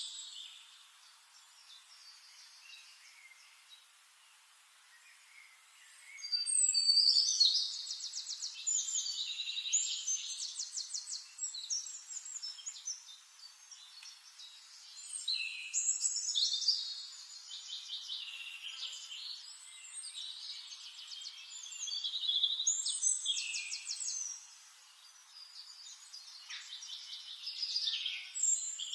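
Songbirds singing in a forest: fast trilled phrases, some overlapping, after a quiet stretch of a few seconds near the start.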